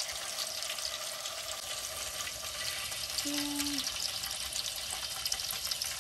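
Hot oil sizzling and crackling steadily around a whole turkey in a turkey-fryer pot. A brief low hum sounds about three seconds in.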